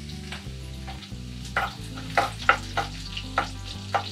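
Green chilli and garlic sizzling in hot sesame oil in a clay pot. A metal ladle stirs and scrapes against the pot in sharp strokes, about two a second, from about a second and a half in.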